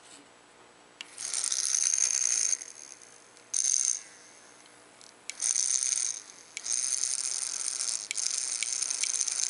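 Rotary tattoo machine running in runs switched on and off by a footswitch: a mechanical buzzing rattle, first for about a second and a half, then two short runs, then steadily through the last few seconds.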